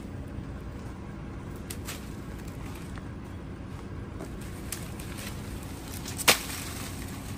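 Faint rustling and scattered crackles of dry leaves and a woven plastic sack as a snake is shaken out into undergrowth, over a low steady rumble; one sharper crackle about six seconds in.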